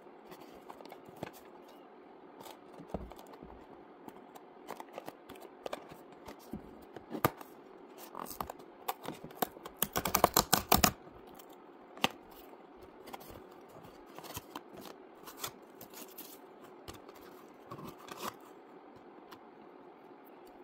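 Cardboard box handled and opened: scattered taps and rustles, with a quick run of crackling clicks about ten seconds in as the box's perforated tear strip is torn open. Near the end the plastic sensor applicator is handled.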